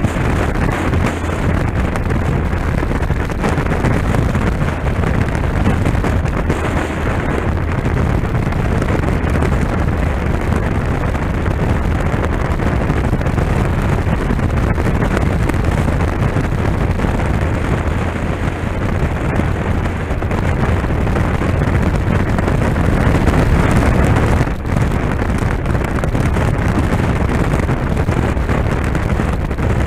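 Wind rushing over a helmet-mounted camera's microphone on a moving motorcycle, with the motorcycle's engine running steadily underneath. The noise dips briefly once near the end.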